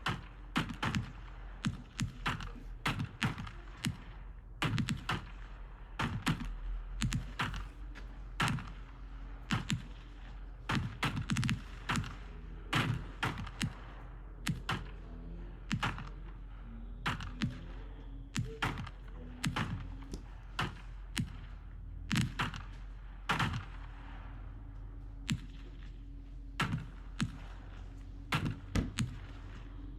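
Consumer fireworks cakes firing: an irregular string of sharp pops and bangs, one to three every second, each trailing off in a short echo.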